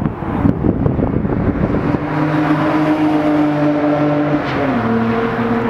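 Nissan Skyline GT-R running at speed past on the straight: a steady engine note that drops in pitch near the end as the car goes by.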